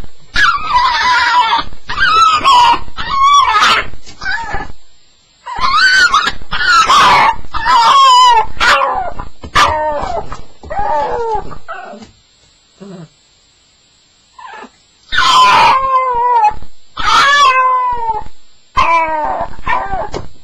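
Staffordshire bull terrier crying in distress on its first night, with long bouts of high-pitched whining and howling cries that bend up and down in pitch. Partway through, the cries stop for about three seconds apart from a couple of faint short whimpers, then start again.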